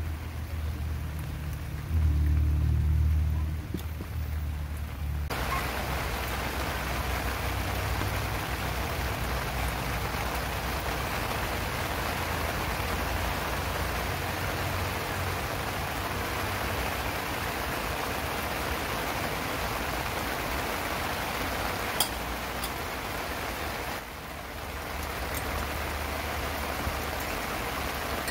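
Steady rain falling, an even hiss that starts suddenly about five seconds in, after a low rumble, and goes on to the end. There is a single sharp click a little before the end.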